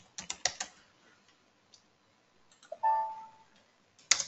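Computer keyboard typing for the first moment, then a short electronic chime about three seconds in, sounding as a software status message appears, and a single sharp click near the end.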